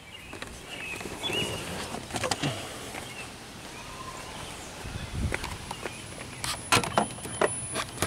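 Irregular clicks, knocks and footsteps of someone handling a scan tool and moving to a truck's open engine bay, with a cluster of sharp clicks about seven seconds in.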